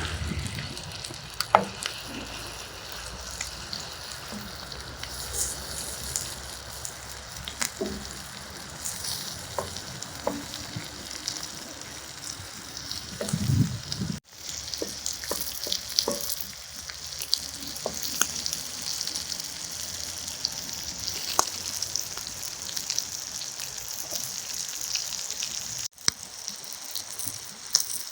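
Chopped heart, liver and potatoes sizzling steadily in a hot pan, with small clicks of a utensil stirring. The sizzle breaks off abruptly twice and resumes, louder after the first break.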